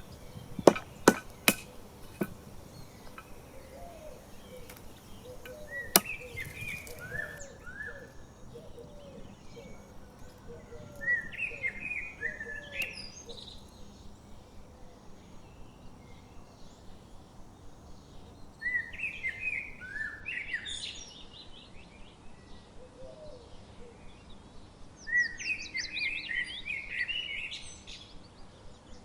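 Songbirds singing in short bursts of chirping phrases, several seconds apart. A few sharp knocks come in the first two seconds and another about six seconds in.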